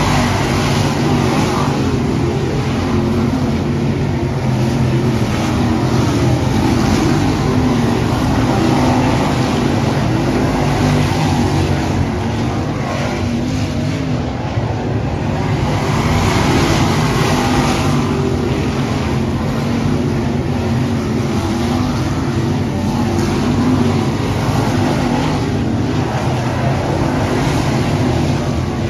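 A field of dirt late model race cars at speed on a dirt oval, their V8 engines running hard. The sound swells several times as the pack comes past and eases as it goes down the far end.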